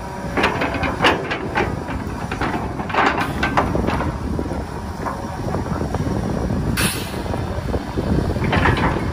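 Kobelco SK250 hydraulic excavator's diesel engine running steadily under load as the bucket digs into soil. Clusters of scraping and clinking come from the bucket working through stony dirt, and there is a short hiss about two-thirds of the way through.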